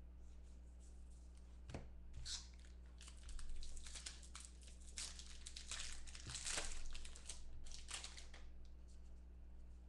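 Foil wrapper of a Bowman football trading-card pack being torn open and crinkled by hand, an irregular run of rustling tears and crinkles lasting several seconds, loudest about a third of the way in and again past the middle.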